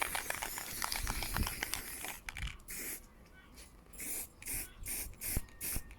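Aerosol spray-paint can spraying black paint over letter stencils: a steady hiss for about two seconds, then a string of short bursts, about two a second.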